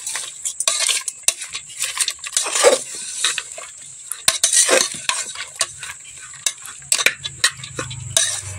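A metal ladle scraping and clicking against the inside of a pressure cooker as raw chana dal, oil and chopped vegetables are stirred together, with the grainy rustle of the dry lentils being turned over. The strokes come irregularly, several a second.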